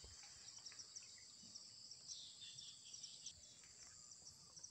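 Near silence: faint, high-pitched insect chirring with a steady pulse, with a few soft bird chirps about two seconds in.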